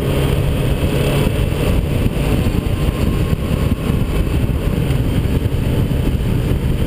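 Onboard sound of a Yamaha FJR1300 inline-four motorcycle cruising at road speed: a steady, heavy wind rumble on the camera microphone over the engine's drone.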